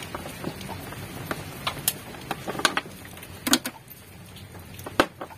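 Irregular clicks and light knocks of audio cables and plugs being handled off-camera, with two louder knocks about three and a half and five seconds in.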